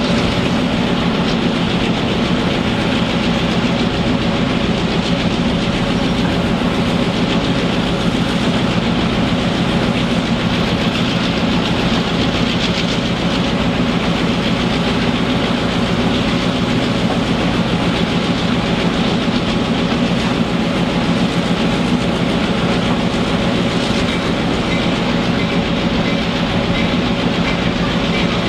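Diesel-hauled passenger train running along the track: a steady rumble of wheels on rails under a constant diesel engine drone.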